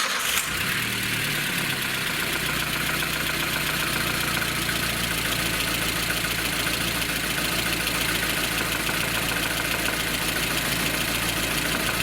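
Lada Kalina engine starting and settling into a steady idle within a couple of seconds, running with a rattle that the mechanic puts down to large axial play of the camshaft.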